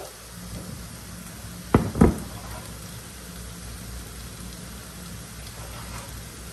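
Chopped onion, tomato and green pepper sizzling steadily in a frying pan over a gas flame. Two sharp knocks come about two seconds in, as a plate is set down on the counter.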